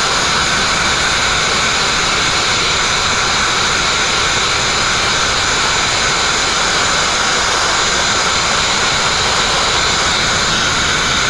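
Abrasive blasting nozzle blowing compressed air in a steady, unbroken hiss against a steel narrowboat hull, as the blast pot runs out of abrasive.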